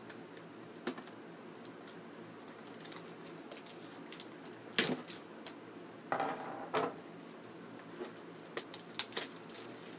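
Plastic shrink wrap being picked at and torn off a cardboard box: scattered sharp clicks and taps, the loudest about five seconds in, and a short crinkling rip of plastic just after six seconds.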